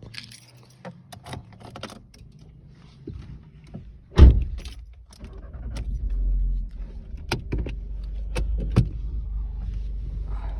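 Keys jangling with small clicks, then a single loud thump about four seconds in, like a car door shutting, followed by the steady low rumble of a car running, with a few sharp clicks.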